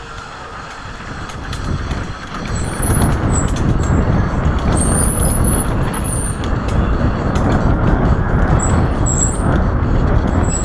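Mountain bike riding fast down a dirt singletrack: wind rushing over the camera microphone and tyres rolling on the trail, with rattling and clicks from the bike, getting louder about two seconds in as speed builds. Two brief high squeals come in the middle.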